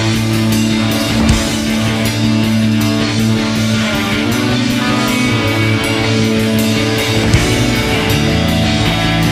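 Background rock music with guitar and drums, playing at a steady beat.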